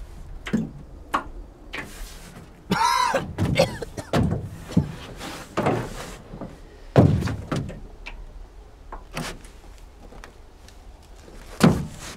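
Irregular hollow knocks and thuds against an aluminium rowboat's hull, roughly one a second, with one short wavering sound about three seconds in.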